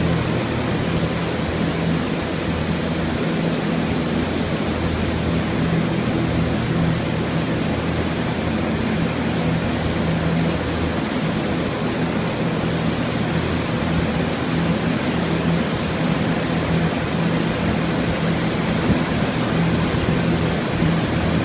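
Drying fans (air movers) running steadily: a constant rush of air with a low motor hum underneath, drying out a water-damaged building.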